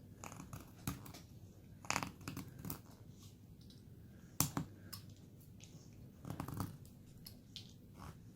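Carving knife slicing into basswood: a handful of short, crisp cuts at uneven intervals, the loudest about four and a half seconds in.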